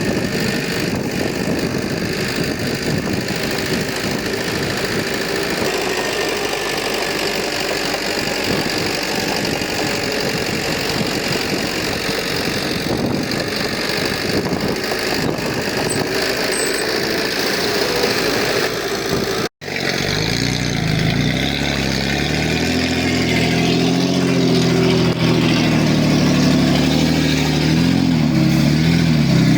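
Diesel engines of heavy earthmoving equipment running steadily. A brief dropout about two-thirds of the way through marks a cut, after which a nearer engine is heard with its pitch rising and falling as it revs.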